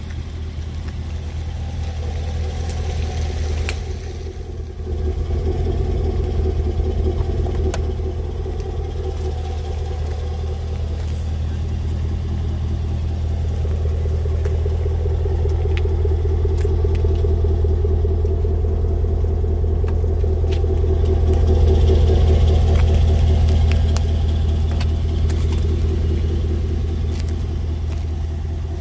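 Jaguar F-Pace SVR's supercharged 5.0-litre V8 idling with a steady low exhaust rumble. It dips briefly about four seconds in and swells a little about two-thirds of the way through.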